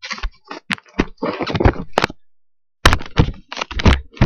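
A run of irregular knocks, thumps and rustles, the handling noise of a camera being moved about and bumped, with a short dead gap about two seconds in.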